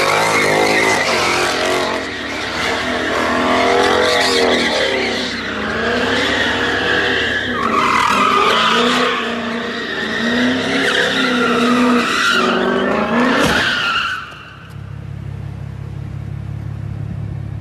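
Car tires squealing continuously on a concrete parking deck as the car spins donuts, the pitch of the squeal wavering up and down with the engine running under it. About fourteen seconds in the squeal stops, leaving a steady low rumble.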